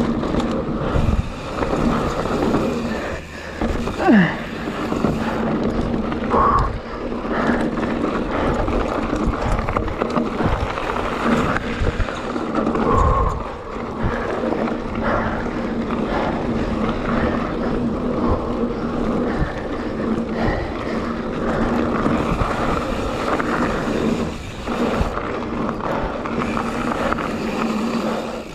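YT Jeffsy mountain bike rolling fast downhill over dry, hard gravel: a steady rush of tyre and wind noise on the camera microphone, with the bike rattling and knocking over bumps.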